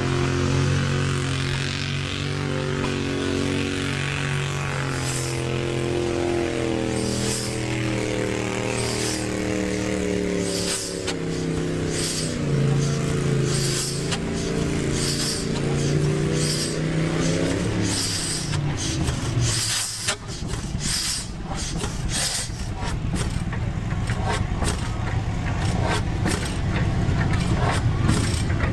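Antique vertical stationary gas engine starting up: sharp exhaust puffs about once a second that come faster and closer together from about twenty seconds in. Under them, a low steady drone stops about eighteen seconds in.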